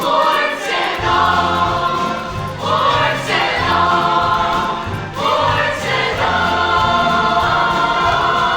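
Ensemble of voices singing a musical-theatre number over instrumental accompaniment, in long sung phrases that begin afresh about every two and a half seconds.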